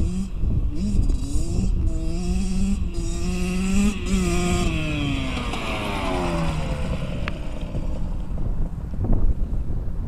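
Kawasaki KX60 dirt bike's small two-stroke single-cylinder engine revving up and down as it approaches. Its note drops in pitch as it passes about five seconds in, then fades as it rides away.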